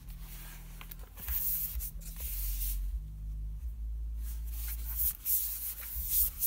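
Handling noise from lifting a laptop out of its cardboard box and tray: hissy rustling and sliding in two stretches, one about a second in and a longer one from about four seconds, over a low rumble.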